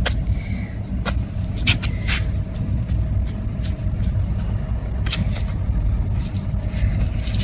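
A hand tool punching and mixing wet vegetable peels into soil: a few short, sharp scrapes and knocks. They sit over a steady low rumble and a faint steady hum.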